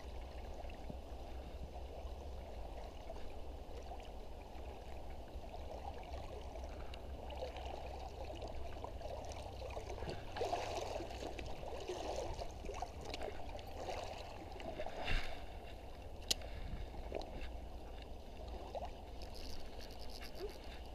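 Shallow stream water trickling and gurgling around an inflatable packraft, with a couple of short sharp clicks about fifteen and sixteen seconds in.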